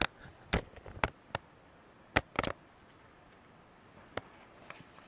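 Fingers handling an Asus G46VW laptop's underside, making scattered sharp taps and clicks, with a quick cluster about two seconds in and a single tap near the end.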